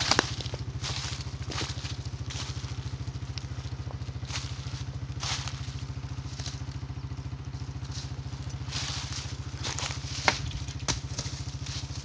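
An ATV (quad) engine running steadily at a constant pitch, with dry fallen leaves crunching and crackling underfoot or under the tyres, and a sharper crack about ten seconds in.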